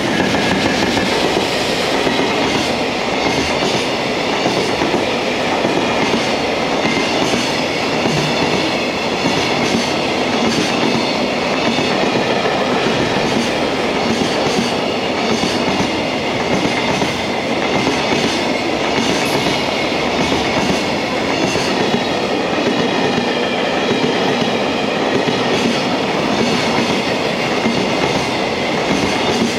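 Long container freight train rolling past at close range: a steady rumble of wagons, with the wheels clacking over the rail joints.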